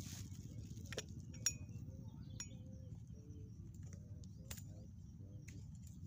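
Several sharp clinks and knocks as a glass cup and a plastic water bottle are set down among pots on a wooden bench, the loudest about a second and a half in, over a steady low rumble.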